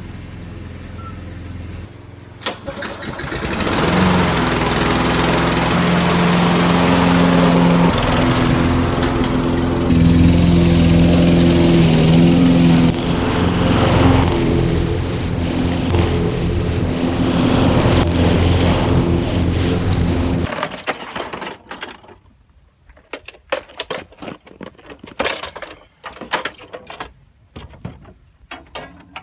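Toro Recycler 6.5 HP push lawnmower engine running loudly and steadily, then cutting off suddenly about twenty seconds in, followed by scattered clicks and knocks.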